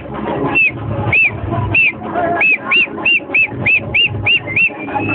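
Whistling: short rise-and-fall whistled notes repeated, coming faster about halfway through and ending on one held note, over a steady low bass.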